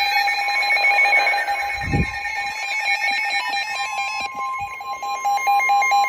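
Several NOAA weather radios alerting at once, with overlapping steady and pulsing electronic alarm beeps. A steady alert tone near 1050 Hz, the weather-alert tone, joins about four seconds in. A low thump comes about two seconds in.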